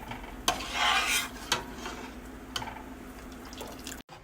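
A spoon clinking and scraping against a saucepan of boiled homemade sugar syrup. There are a few separate clinks and a short stretch of stirring about a second in.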